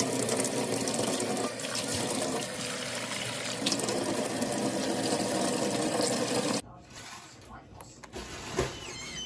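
Kitchen faucet running water, first splashing into a stainless steel sink, then into a plastic container held under the stream to fill it. The water shuts off abruptly about two-thirds of the way through, leaving a few small clicks.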